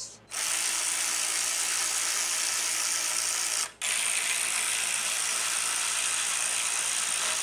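Battery-powered wrench with a 9/16 socket running a nut on the front suspension: a steady mechanical whir held for about three seconds, a brief stop, then another run of about the same length.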